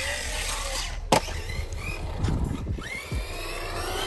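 Brushless electric motor of a ZD Racing MT16 1/16 RC monster truck whining up and down in pitch as it is throttled and let off. There is a sharp knock about a second in, and a low rumble of the tyres rolling underneath.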